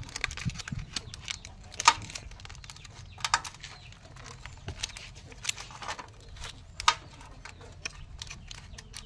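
Aluminium foil crinkling and crackling as hands fold and press it around a fish, in irregular short crackles, the sharpest about two seconds in and again near seven seconds.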